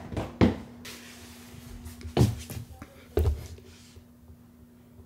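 Footsteps thudding on wooden stairs, a few heavy steps one to two seconds apart, ending in a last knock about three seconds in. A low steady hum runs underneath.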